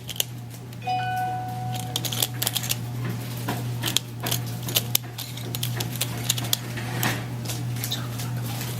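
Rapid, irregular clicking of a plastic Pyraminx speed puzzle being turned face after face as it is solved, each turn clicking as the piece locks into place. The clicking is said to come from magnets inside holding the pieces secure. A steady low hum runs underneath.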